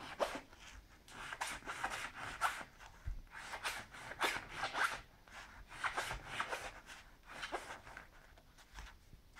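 Knife blade sawing back and forth through the crust of a bread roll: quick rasping strokes in four or five short spells with brief pauses between them.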